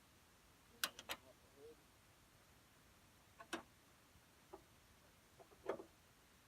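Near silence broken by a few faint, sharp clicks and knocks: a cluster of three about a second in, and single ones later, with one near the end.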